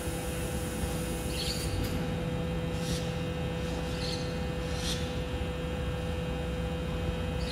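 BYD electric garbage truck humming steadily while standing, a pitched hum over a low rumble. A few short, high chirps come and go over it.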